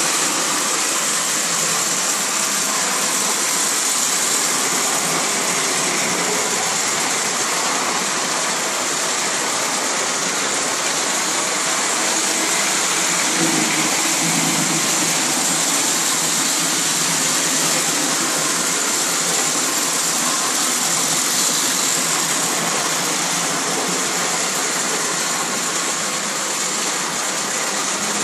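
Lionel model freight train running past on its metal track: a steady, even rolling noise of the wheels and cars on the rails, with no breaks.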